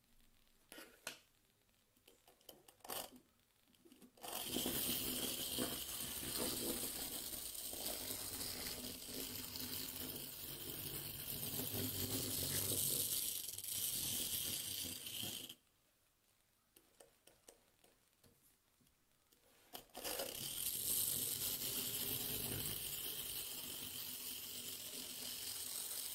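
Small single-cylinder 009-gauge live steam locomotive running with a steady hiss, after a few light metallic clicks. The hiss starts about four seconds in, cuts off suddenly about halfway, and comes back some four seconds later.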